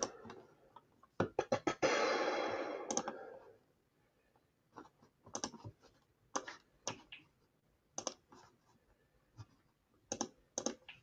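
Computer keyboard keystrokes and clicks, scattered in small groups with pauses between them. A brief noisy rush lasts about a second and a half around two seconds in.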